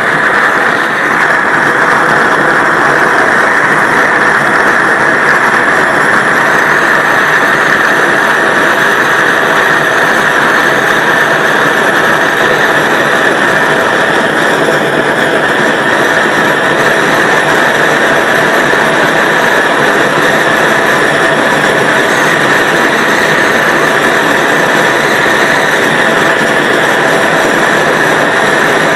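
Large gas torch burning with a steady, loud hiss from its blue flame.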